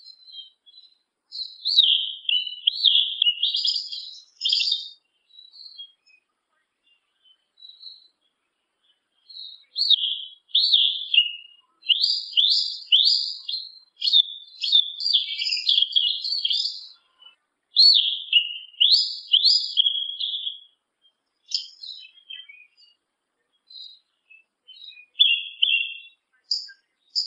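Yellow-legged thrush (sabiá-una) singing: phrases of rapid, high, sweeping notes lasting a few seconds, separated by short pauses, with scattered single notes near the end.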